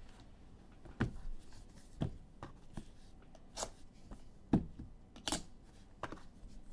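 Trading cards and packs being handled: a series of soft taps, slides and rustles about a second apart, the sharpest about four and a half seconds in.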